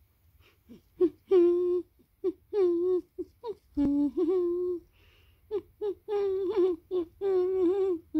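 A woman humming a tune: a string of short and held notes with little breaks between them, starting about a second in.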